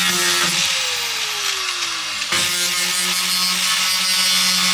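Angle grinder with a cutting disc cutting out a metal strut in a van's side wall: a steady motor whine under a harsh grinding hiss. The pitch sags as the disc slows, then jumps back to full speed with a jolt just over two seconds in, and begins to drop again near the end.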